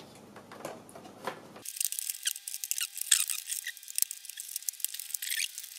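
Plastic front bezel of an LCD monitor being pressed onto its frame, clips clicking and snapping into place. About a second and a half in, the sound abruptly loses all its low end and becomes a sped-up stretch of the same handling: a dense patter of high-pitched clicks and chirps.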